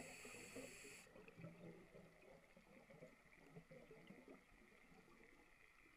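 Near silence underwater: faint, irregular crackle heard muffled through a camera's waterproof housing, with a brief hiss in the first second.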